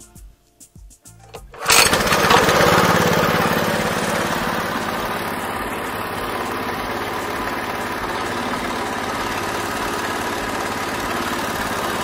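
Walking tractor's single-cylinder petrol engine starting about two seconds in, then running steadily at idle.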